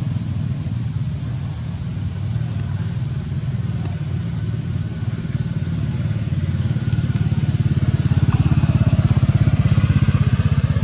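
A motor engine running steadily with a fast low pulse, getting louder about eight seconds in. Short high chirps repeat faintly above it.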